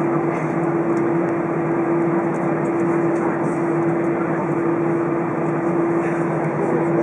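Steady jet airliner cabin noise inside an Airbus A320 rolling on the ground: engines at low power and cabin air, with a constant mid-pitched hum over an even rush.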